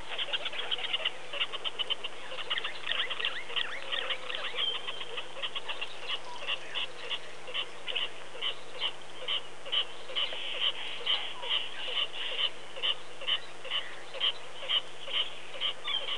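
A chorus of frogs calling: many short, high calls overlapping. In the second half they settle into a regular beat of about two calls a second.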